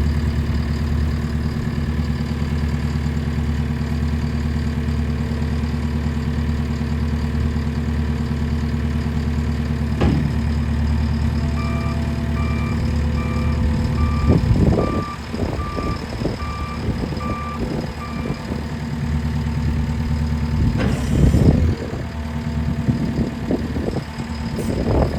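2017 JCB 260T skid steer's diesel engine running steadily. About halfway through, its reversing alarm beeps about ten times over six seconds as it backs up, with scattered clanks and knocks of the machine moving.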